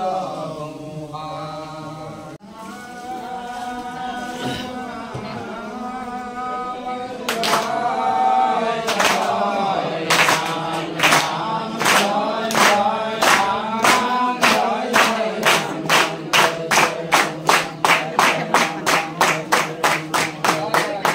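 Group devotional chanting of an Assamese nam-prasanga, voices in unison. About seven seconds in, hand claps keep time, slow at first and speeding up steadily to about three a second.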